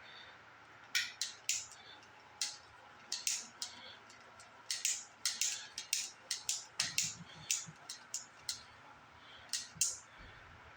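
Irregular short clicks and rustles of small parts being handled, about two dozen in all, clustered most thickly in the middle of the stretch.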